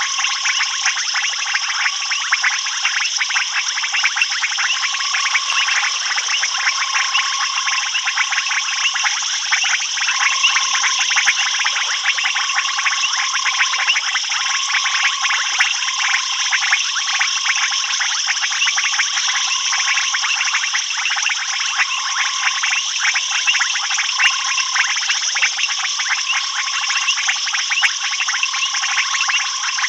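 Dense night chorus of frogs and insects: a steady high shrill hum over rapid, crowded clicking, with a short mid-pitched note repeating about once a second.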